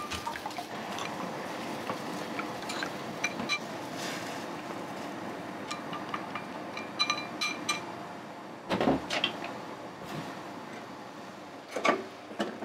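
Kitchen work: crockery and utensils clinking now and then over a steady background noise, with a louder knock about nine seconds in and another near the end.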